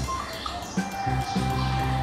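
Background music with bass notes that change about twice a second over a light beat.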